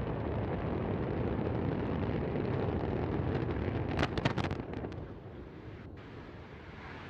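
Low rumble of the Antares rocket in flight, broken about four seconds in by a sharp crackling blast as the failing rocket explodes; the rumble then dies away quickly.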